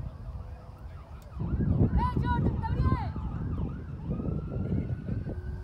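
Wind buffeting the microphone, with a burst of short, high-pitched shouts from the field about one and a half to three seconds in. A faint long wail slowly rises near the end.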